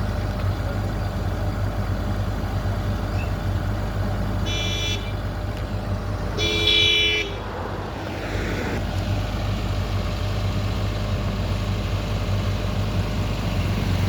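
Excavator's engine running steadily. About halfway through, a vehicle horn toots twice; the second toot is a little longer and louder.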